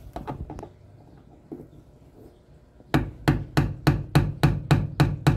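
A few faint clicks, then about three seconds in a steady run of quick hammer taps, about four a second, on the end of a screwdriver held against the car's metal pillar, driving its tip in to open up a small screw hole.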